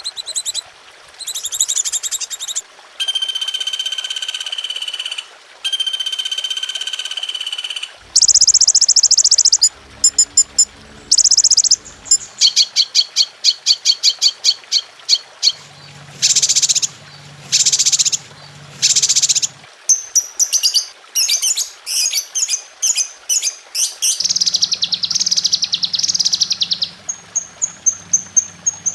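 Masteran compilation of many different songbird songs played one after another for caged birds to learn: clear whistles, rapid trills and buzzy chattering phrases, the singer changing abruptly every few seconds.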